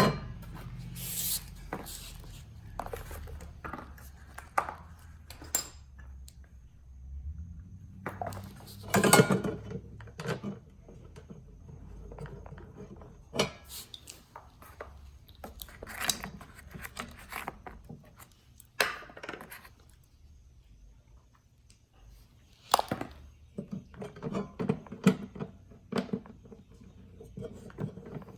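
Scattered metallic clinks and knocks of hand tools and hardware being handled while a mounting bracket is refitted, with pauses between the sounds.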